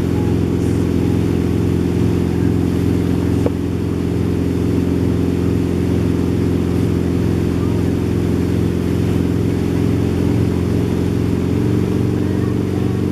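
Towing boat's engine running steadily at speed, a deep even drone, with one short click about three and a half seconds in.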